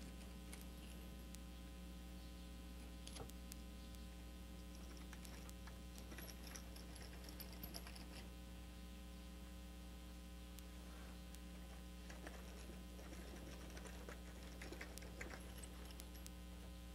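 Faint clicks and scraping of a splining tool's roller pressing vinyl spline into the groove of a metal screen frame, scattered and uneven, over a steady electrical hum.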